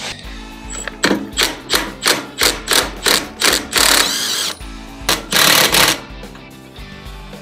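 Cordless impact driver hammering on a bolt at the go-kart's front end, first in short bursts about three a second, then in two longer runs of about a second each.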